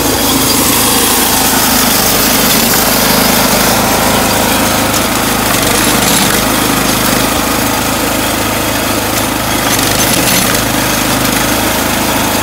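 Rail-mounted clip-driving machine for rail fastening clips, its motor running steadily with a continuous hum.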